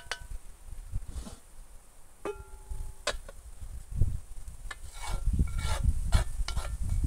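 Wooden spoon scraping and stirring curry paste in a black wok, with sharp knocks of metal on metal as the wok is tipped against a pot; one knock about two seconds in rings on for most of a second. Near the end, quick repeated scrapes as the paste is scraped out of the wok into the pot.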